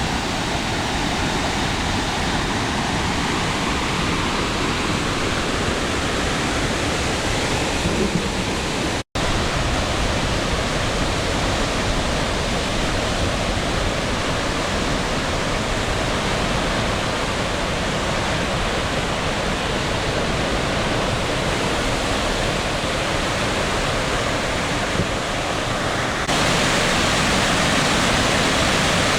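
Waterfall in full flow after heavy rain: steady, loud rushing water, with a momentary break about nine seconds in and louder near the end.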